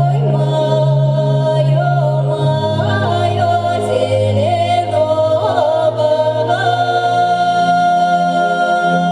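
Live ethno-fusion music: a high voice sings a held, sliding melody with ornamented turns over steady low drone tones.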